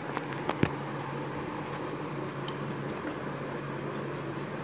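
A few sharp light clicks within the first second, the loudest about two-thirds of a second in, as parts of an opened laptop are handled around the hard-drive bay. They sit over a steady low hum and hiss.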